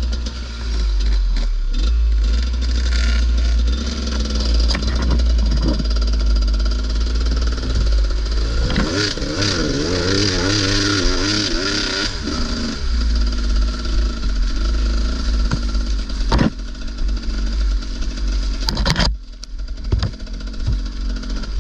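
Enduro motorcycle engine running under way over a constant deep rumble, revved up and down several times in quick succession about nine seconds in. A couple of sharp knocks come later.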